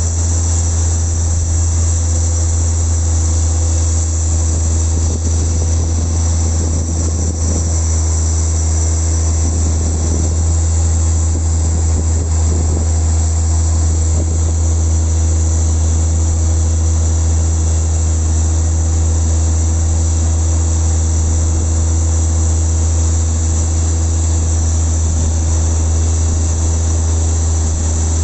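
Airbus A350-900 pushback: a loud, steady machine drone from the airliner and its pushback tug, a deep rumble with a high whine above it, unchanging throughout.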